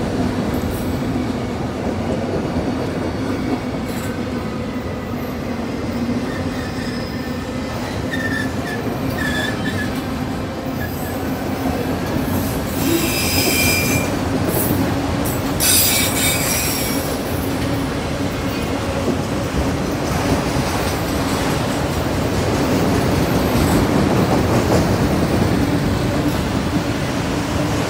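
CSX autorack freight train rolling past, a steady rumble of wheels on rail, with two brief high-pitched wheel squeals near the middle.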